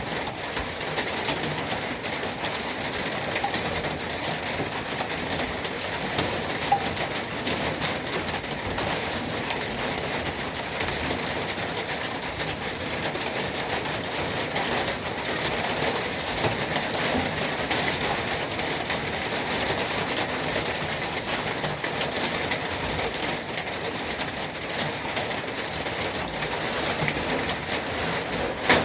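Sandpaper being rubbed by hand over a diamond-plate truck toolbox: a steady, continuous rasping scratch of abrasive on the metal plate.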